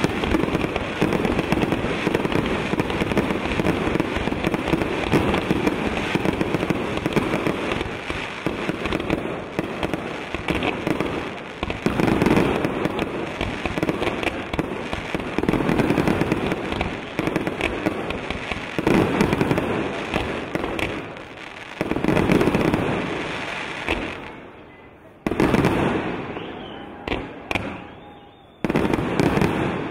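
Fireworks display: a dense, continuous barrage of exploding shells, thinning out about 24 seconds in to separate bangs with quieter gaps between them.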